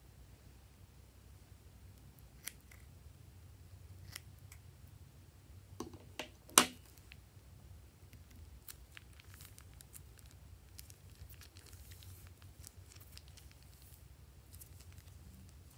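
A few sharp clicks and taps, the loudest about six and a half seconds in, then faint scattered crackling as a plastic piping bag is squeezed into slime in a glass dish.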